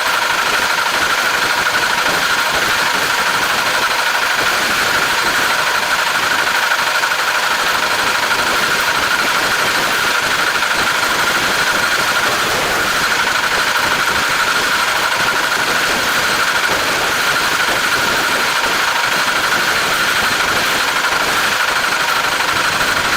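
Farm tractor engine running steadily while baling hay, with a constant high-pitched whine over it.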